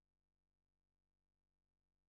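Near silence: an essentially soundless track with no audible sound.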